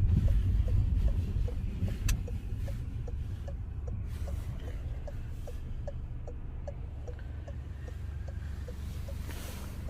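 Steady low rumble of a car heard from inside the cabin, with a turn-signal indicator ticking about two and a half times a second. A single sharp click comes about two seconds in.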